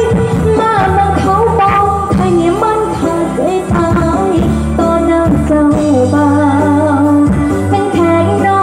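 A woman singing a Thai song into a microphone, amplified through a stage PA over a music backing; about halfway through she holds one long, wavering note.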